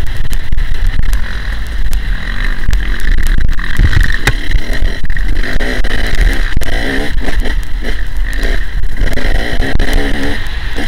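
Dirt bike engine running under way, its pitch rising and falling as the throttle is worked, with heavy wind rumble on the microphone.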